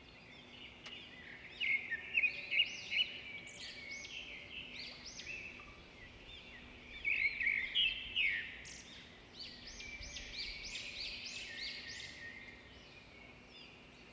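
Birds chirping and singing: many quick overlapping chirps and short whistled notes, loudest about two seconds in and again around seven to eight seconds in.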